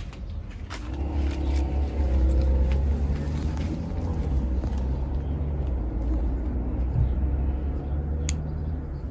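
A low, steady engine rumble that swells about a second in and holds, with a few light clicks.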